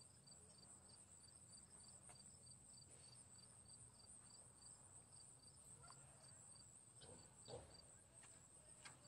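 Faint crickets chirping in an even rhythm, about two or three chirps a second, over a steady high hiss; a soft low knock about seven and a half seconds in.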